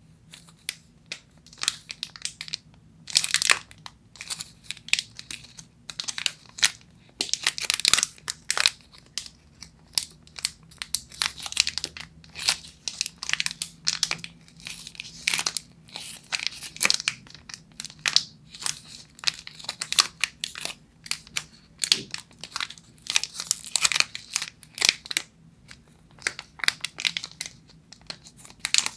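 Crinkly wrapper of a Millennium Air chocolate bar being squeezed and twisted in the fingers, giving irregular clusters of sharp crackles with short pauses between them.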